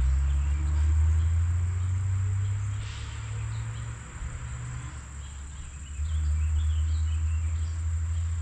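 Insects trilling in one steady, continuous high note, over a louder low rumble that eases off mid-way and comes back about six seconds in.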